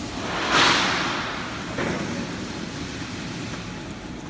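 GZC3535 CNC plate drilling machine running, with a steady low machine hum, a loud rush of noise about half a second in that dies away quickly, and a shorter one near two seconds.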